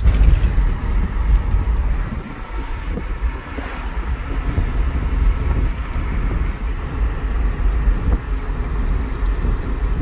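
Engine and road noise inside the cab of an older compact pickup truck driving at town speed, a steady low rumble.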